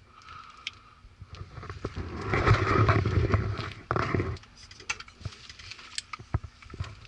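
Metal tools clicking and clinking as bit sockets are sorted through, with a louder rattle of rummaging in the tools from about two to four seconds in.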